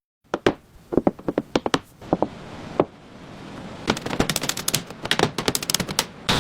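An irregular run of sharp clicks and knocks, some ringing briefly, over a hiss that swells twice, with a dense cluster of clicks in the last two seconds.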